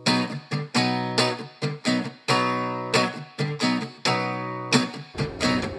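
Acoustic guitar strumming a choppy A-A-A-B chord pattern, played to match the rhythm of a railroad train running down the tracks. The chord shifts near the end.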